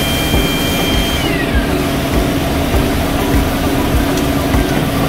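Hydraulic torque wrench and its powered pump running: a loud, steady mechanical drone with uneven low pulses. A high whine slides down in pitch about a second in.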